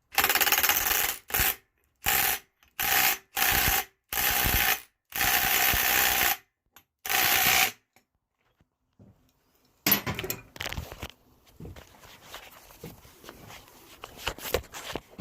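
Impact wrench hammering a flywheel puller's centre bolt in about eight short bursts, working the flywheel loose from the crankshaft taper of a Suzuki GSX-R600 engine after it has been heated. After a pause about eight seconds in, there are light clicks and tool-handling sounds.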